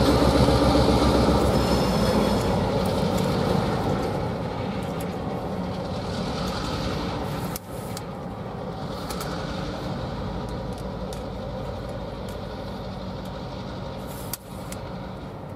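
EMD GP10 diesel-electric locomotive with its 16-cylinder 567 engine running as it pulls passenger coaches away along the track, the engine and rail noise fading steadily as the train recedes.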